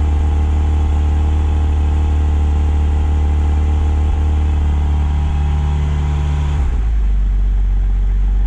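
Porsche 718 Cayman GTS 4.0's 4.0-litre flat-six, heard at the exhaust tips, running at a raised cold-start idle. About six and a half seconds in, the engine note steps down as the idle drops to a lower speed.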